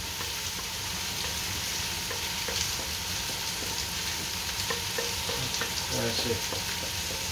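Couscous and vegetables sizzling in a hot frying pan as they are turned over, with a steady hiss and small scattered clicks and scrapes.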